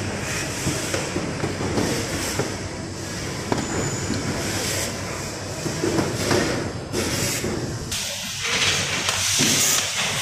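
Assembly-line factory noise: a steady machinery din with scattered knocks of parts and tools, and hissing that grows louder about eight seconds in.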